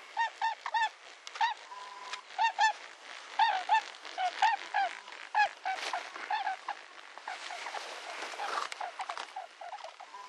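Geese honking, many short calls in quick succession, loudest over the first seven seconds and fainter after. A patch of rustling comes about seven seconds in.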